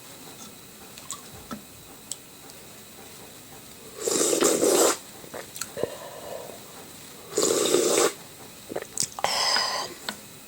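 Three loud, noisy eating sounds close to the microphone, each under a second long, about four, seven and a half and nine seconds in, with a few small clicks between them.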